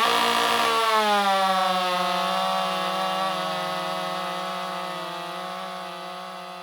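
Stihl MS 400 C two-stroke chainsaw, reworked by Mastermind and on its first start after that work, held at high revs: one steady high-pitched engine note that settles slightly in the first second, then holds while getting gradually quieter.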